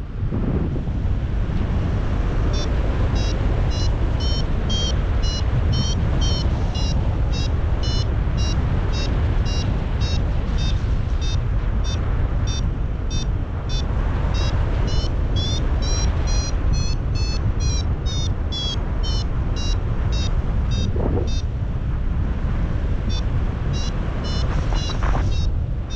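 Paragliding variometer beeping: short high tones repeating about two a second, pitch and pace rising and falling, the climb tone that signals the glider is rising in lift. Heavy wind rush on the microphone runs underneath and is the loudest sound.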